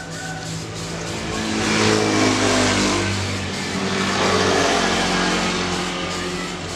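A motor vehicle's engine passing close by, swelling to its loudest about two seconds in and again a little after four seconds, over the hiss of an aerosol spray can of white paint being sprayed onto a wheel rim.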